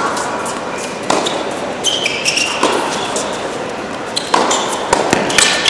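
Tennis ball struck by rackets and bouncing on an indoor hard court during a doubles rally: about six sharp hits and bounces, roughly one every second, with short high-pitched squeaks around two seconds in.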